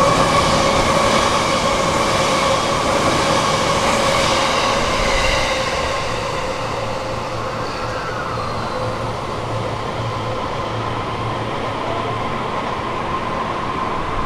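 E655 series 'Nagomi' train passing through the station at speed without stopping. Its running noise and wheels on the rails are loudest for the first five or six seconds, then fade as it pulls away. A steady high tone carries on underneath throughout.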